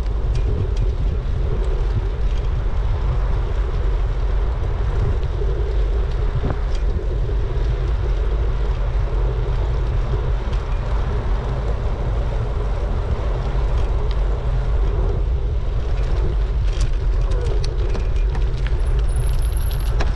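Wind buffeting a GoPro's microphone while cycling: a steady low rumble mixed with road and tyre noise, with a few faint clicks.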